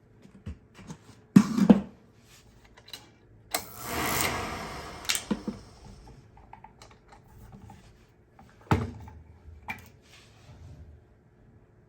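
Clicks, knocks and clatter of hand tools and metal parts being handled while working on an oil burner, with two sharp knocks and a noisy rasp lasting a second or two about four seconds in.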